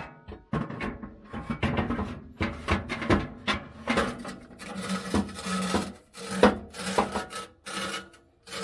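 A power saw rasping through the old exhaust pipe in a run of stop-start cuts with short pauses, a motor hum rising and falling with each cut.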